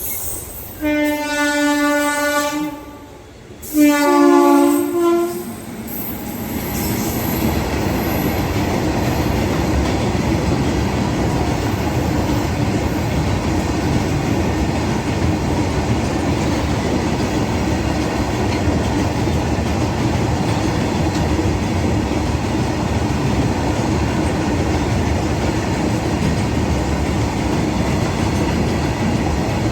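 Train horn sounded in two long blasts, the second slightly higher at its end, followed by the steady rumble and rail noise of a passing train.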